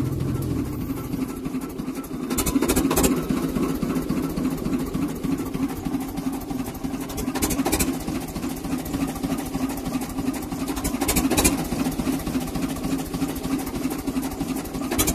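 Small narrow-gauge diesel locomotive's engine running steadily, heard close from the driver's seat as it moves slowly along the track, with a few short clanks now and then.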